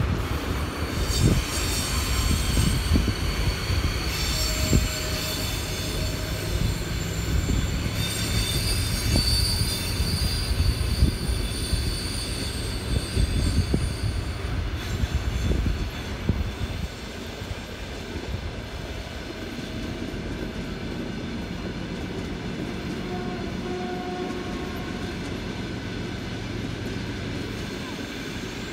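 Passenger train hauled by a ChS7 electric locomotive passing close by: a loud rumble of wheels on rails with repeated knocks over the rail joints and a thin high-pitched ringing. About two-thirds of the way through the noise drops off and the ringing stops, leaving a steadier, quieter rumble as the coaches draw away.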